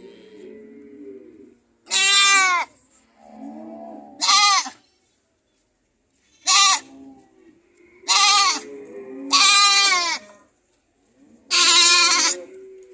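Goats bleating and screaming repeatedly: about six loud, wavering, high calls, each under a second long, with quieter, lower bleats in between.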